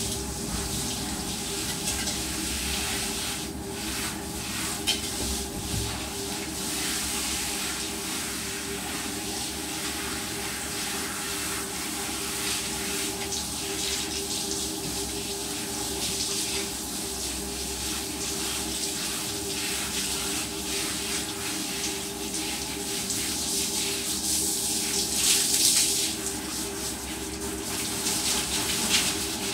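Water from a handheld shower hose spraying onto a dog's thick wet coat and splashing on a tiled floor: a steady hiss, louder for a moment near the end, with a steady low hum underneath.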